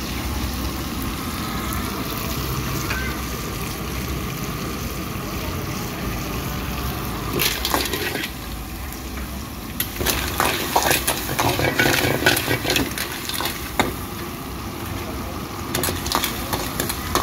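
Snails frying in a wok over a gas burner, a steady sizzle over a low burner rumble, then a metal ladle stirring and scraping the wok, the shells clattering against the pan in quick runs from about seven seconds in, thickest in the middle and again near the end.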